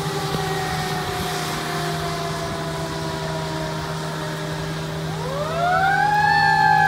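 Fire engine siren wailing: its tone winds slowly down, then about five seconds in it winds sharply up again and holds, louder, with a steady low hum underneath.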